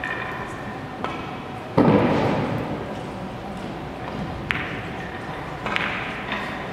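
Billiards hall ambience: a few sharp clicks of carom balls striking at nearby tables, and one loud, heavy thump about two seconds in that echoes away in the large hall.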